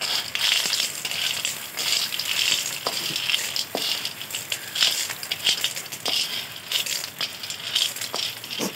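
Freshwater snails in their shells, scraped with a wooden spatula out of a metal pan into a wok of sauce, many small clicks and clatters as the shells knock against the metal and each other.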